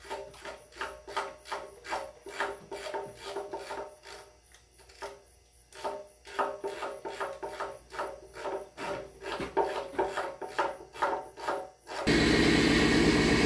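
Hand ratchet being swung back and forth on a bolt, a rasping click on each stroke at about two to three strokes a second, with a short pause partway through. Near the end it cuts to a loud steady machine noise.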